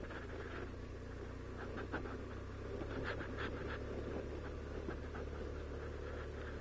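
BMW motorcycle riding slowly on a wet, muddy dirt road: a steady low engine hum under muffled rumble on the microphone, with a few short scratchy ticks about two and three seconds in.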